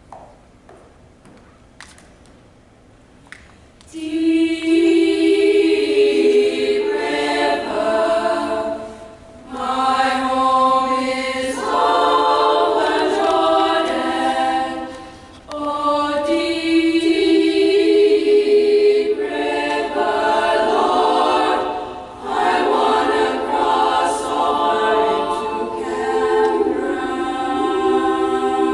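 Boys' choir singing a spiritual a cappella, coming in about four seconds in after a few faint clicks, in long held phrases with brief breaks between them.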